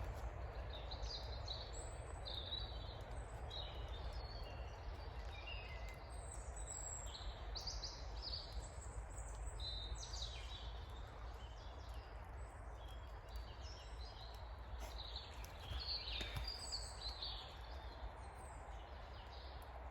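Woodland birds singing and calling: many short chirps and whistles, one after another, over a steady low background rumble.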